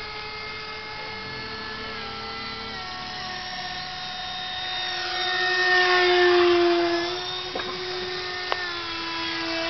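Electric ducted fans of Starmax 64mm F-18 RC jets whining in flight. The whine swells as a jet passes about five seconds in, then drops in pitch as it moves away, and grows again near the end.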